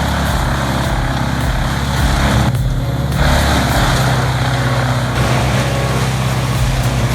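A heavy machine's engine running steadily with a rough noise over it, which briefly drops away about two and a half seconds in.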